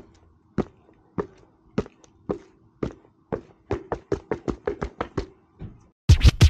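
A series of sharp taps, about two a second at first, then speeding up to about five a second. Loud music with record scratching comes in near the end.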